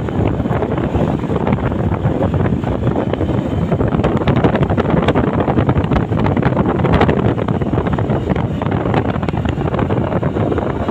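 Wind buffeting the microphone of a Hero motorcycle ridden at about 55 km/h, a loud steady rushing with rapid flutter, the bike's running and road noise blended underneath.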